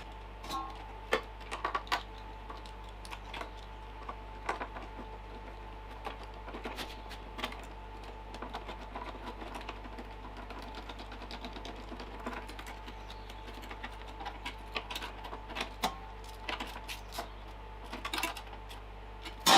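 Irregular light clicks and taps of small metal and plastic carburetor parts being handled and fitted together by hand, over a steady faint hum.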